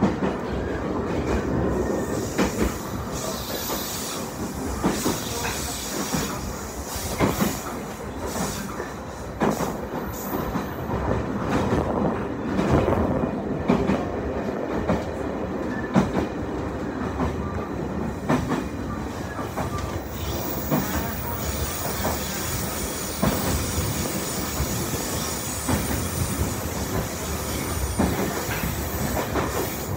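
Senzan Line electric train running at speed, heard from inside the carriage: a steady rumble of wheels on rail with irregular clacks and knocks.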